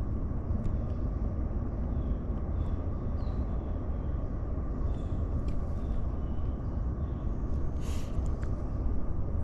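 Steady low outdoor rumble, even in level, with a few faint short high chirps.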